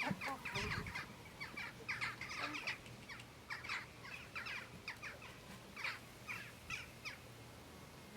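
Birds chirping and calling in many short, quick notes.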